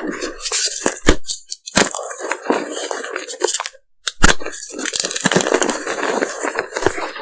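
Large M&M-shaped pieces of reformed gym chalk being crushed: a dry, crumbling crunch with sharp cracks about a second in and again just after four seconds.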